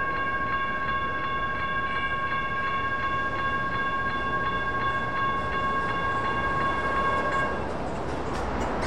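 Railroad crossing's electronic warning bell ringing steadily with a repeating bright ding, then cutting off suddenly about seven and a half seconds in as the crossing signals shut off after the train has cleared.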